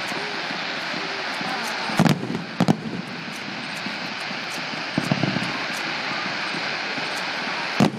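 Distant fireworks display: dull bangs from shells going off, about two seconds in, again shortly after, a cluster around five seconds, and another near the end, over a steady rushing background noise.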